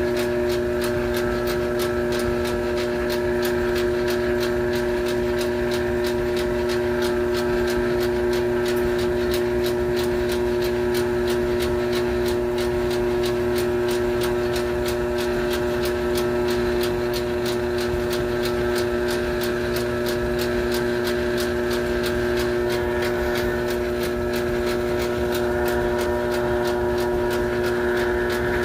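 A motor running steadily with a constant hum of several steady tones and a fast, even ticking.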